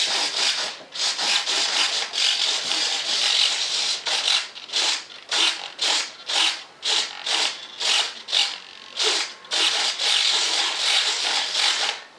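The small servo of a foam RC jet's air brake buzzes as it drives the brake panel open and closed. It runs almost continuously at first, then in short separate strokes about two a second through the middle, then continuously again.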